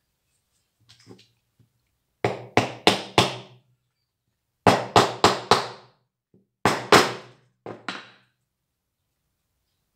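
Sharp knocks on the wood-covered handle as it is worked on the bench, about a dozen in quick groups: four, then four more, then two loud and two lighter ones.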